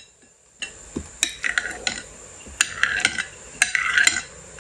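Kitchen knife cutting tofu into cubes on a ceramic plate. The blade clicks against the plate several times, each click followed by a short scraping hiss as it draws through the tofu.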